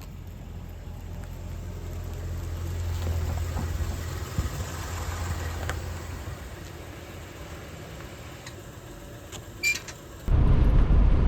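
Motor vehicle engine running with a steady low hum, which swells a little midway. About ten seconds in it changes suddenly to a louder rumble.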